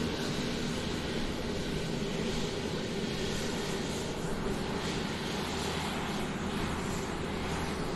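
Airplane taxiing on the ground, its engines running in a steady drone with an even rushing noise and a low hum.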